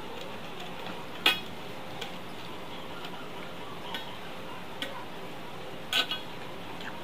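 A few short, sharp clinks of a hand and its rings against a steel plate as rice is mixed by hand, the loudest about a second in and a double clink near the end, over a steady hiss.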